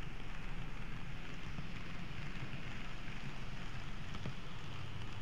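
N-gauge model train running along the track, heard from a camera riding on it: a steady low hum with a hiss, and a few faint clicks.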